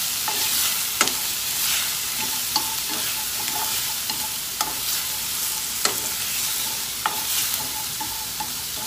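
Diced shrimp sizzling in hot oil in a stainless steel frying pan over high heat, being stir-fried with chopsticks that click sharply against the pan every second or so.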